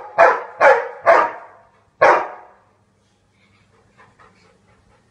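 Labrador-type dog barking: four loud, quick barks in the first second or so, then one more about two seconds in.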